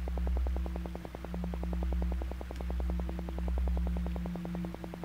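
Synthesized alpha-wave relaxation tones: a steady low drone and a few held tones, pulsing rapidly at about ten beats a second, swelling and fading slowly.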